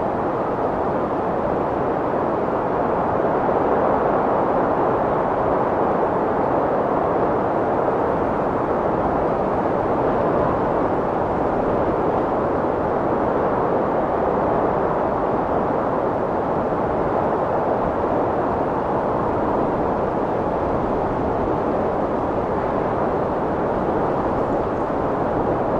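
Strong wind blowing as a steady, dense rushing noise, swelling slightly now and then.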